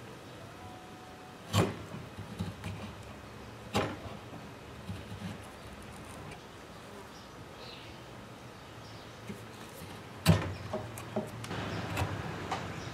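Carving knife cutting into a small wooden lure body: sharp snicks as the blade bites and chips come away, about a second and a half in, near four seconds and again just past ten seconds, with lighter ticks between and a short stretch of scraping cuts near the end.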